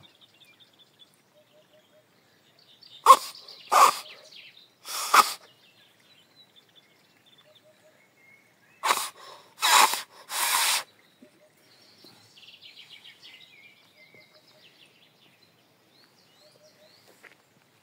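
A walnut leaf held between cupped hands and blown into as a leaf whistle: two sets of three short, breathy, rasping blasts, the second set about six seconds after the first. Birds chirp faintly in between.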